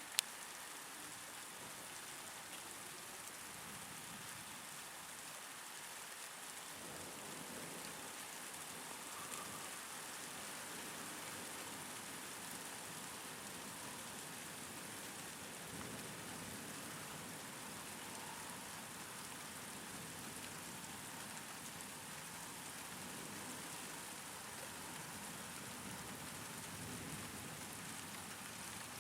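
Steady rain falling, an even hiss, with one sharp click just after the start.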